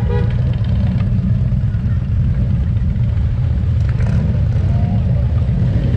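Harley-Davidson touring motorcycles' V-twin engines rumbling steadily as they ride in a slow group, a deep throb that dominates.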